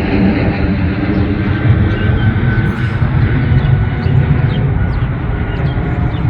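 Jet airliner passing overhead: a loud, steady low rumble that slowly fades.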